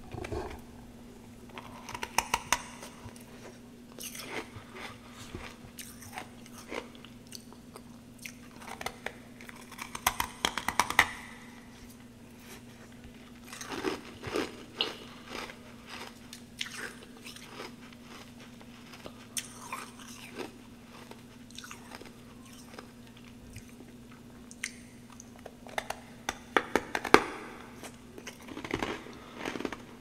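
A person biting and chewing snowballs of packed frost close to the microphone. The crisp crunching comes in bursts of sharp cracks, with pauses between bites.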